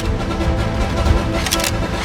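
Background music with a heavy low beat, with a couple of sharp clicks about one and a half seconds in.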